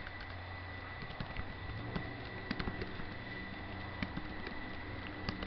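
Computer keyboard typing: irregular single key clicks over a steady low hum and a faint steady high tone.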